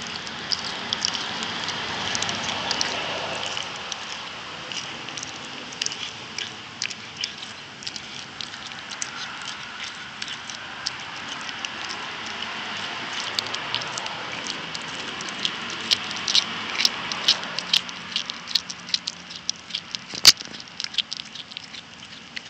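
Cat chewing and crunching a raw chicken wing: irregular crunches and clicks, thicker in the last third, with one sharper crack near the end.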